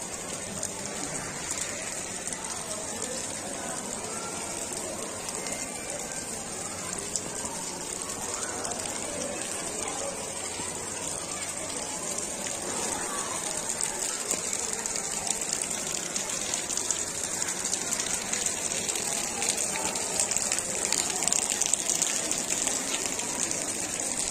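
Steady rain falling, with fine pattering of drops close to the microphone, growing heavier and louder near the end.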